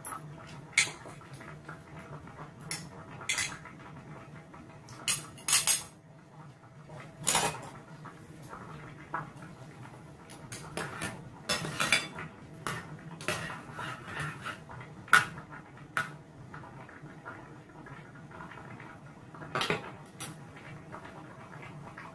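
Metal spoon and fork clinking and scraping against a ceramic plate while eating: irregular sharp clinks, thickest in the first two-thirds, with a last one near the end.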